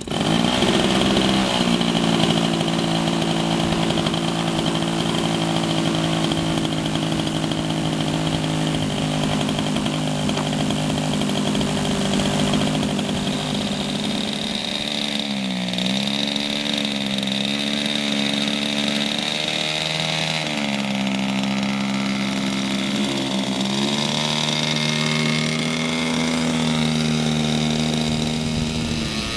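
Boeing P-26 Peashooter's engine running steadily at high power in flight. Its pitch dips briefly and recovers a few times in the second half, and rises near the end.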